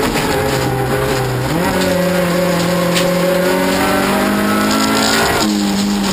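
Toyota Corolla rallycross car's engine at race speed, heard from inside the cabin. The engine note jumps up in pitch about a second and a half in, climbs slowly for several seconds, then shifts abruptly again near the end.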